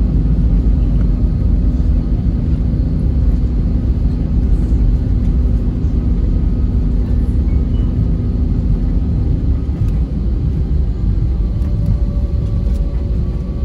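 Airbus A320neo cabin noise during the landing rollout: a loud, steady low rumble from the wheels on the runway and the Pratt & Whitney geared turbofan engines. A steady hum in it fades out about ten seconds in as the aircraft slows.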